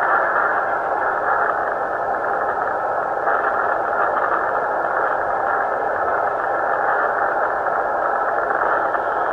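Tornado wind heard through a doorbell camera's microphone: a steady, loud rush of noise with no high end, unbroken throughout.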